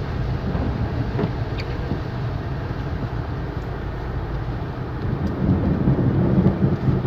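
Steady in-car rumble of a vehicle in slow traffic in heavy rain, with an even hiss of rain over it and a few faint ticks. The low rumble grows louder in the last second and a half.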